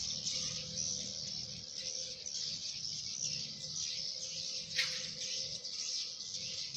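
Dense, continuous high twittering of many swiftlets around a swiftlet house, with one sharper falling chirp about two-thirds of the way through.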